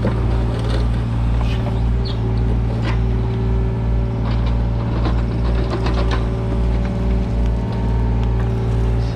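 Mini excavator's diesel engine running steadily, with scattered metallic clinks and clanks.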